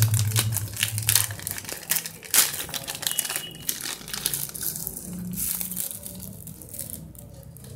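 Thin clear plastic bag crinkling as hands unwrap it and pull out small accessories. The crinkles are dense for the first few seconds, then thin out and get quieter.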